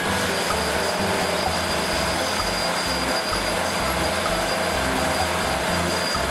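Large Komatsu crawler bulldozer working: its diesel engine running under load and its steel tracks grinding as the blade pushes a heap of earth and rock. A thin steady high whine sits over the rumble.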